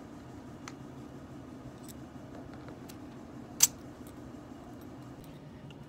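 Pencil-type tire pressure gauge being pressed onto a trailer tire's valve stem to check the pressure, with one short sharp hiss or click of air about three and a half seconds in and a few faint clicks of handling. A faint steady low hum lies underneath.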